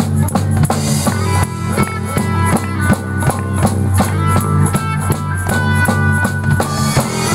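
Christian rock band playing live, drum kit keeping a steady beat under electric guitar, acoustic guitar and keyboard.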